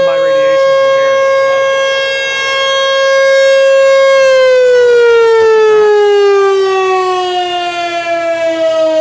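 Three Mile Island T-128 outdoor warning siren sounding a loud steady tone; about four seconds in its pitch starts to fall slowly and keeps dropping as the siren winds down.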